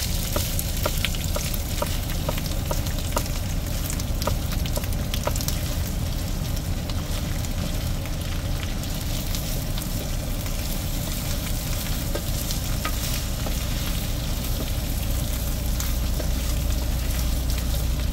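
Ground pork, chorizo and chicken sizzling in an electric skillet while a plastic meat chopper stirs and breaks up the meat, with light clicks and scrapes against the pan that are most frequent in the first several seconds. A steady low hum runs underneath.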